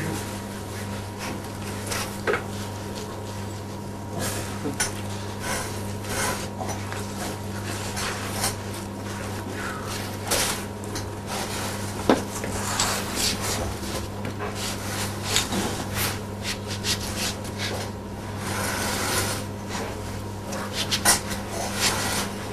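Irregular rustling, scraping and clinking of parts and materials being handled, with a few sharp knocks, over a steady low hum.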